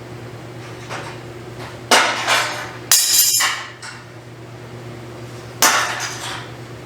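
Metal tool striking the steel bumper: three sharp metallic clanks, each ringing briefly, the first two about a second apart and the third nearly three seconds later.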